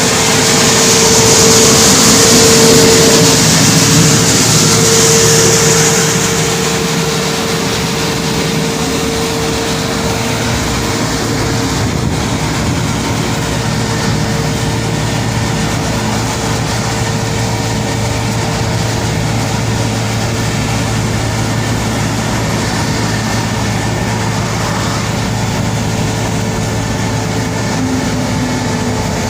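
Track sweeping machine running steadily, its engine holding an even hum with a constant whine above it. A loud hiss sits over it for the first six seconds or so, then the sound settles to an even running noise.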